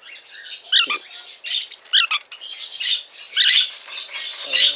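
Lineolated parakeets calling: a run of sharp, high chirps and squawks, the loudest about one, two and three and a half seconds in.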